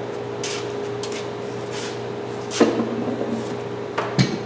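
Two sharp knocks, about 2.6 s and 4 s in, from bar clamps being handled against a wooden clamp rack, with faint rustling before them and a steady hum underneath.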